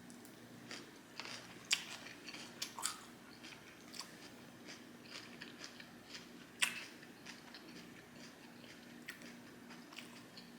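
A person chewing and biting food close to the microphone: irregular crisp crunches and wet clicks, the loudest about two-thirds of the way in. A faint steady hum runs underneath.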